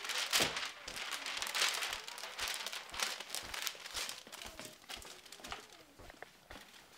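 Crinkling and rustling of a roll of wrapping paper being handled, busiest in the first four seconds and quieter after.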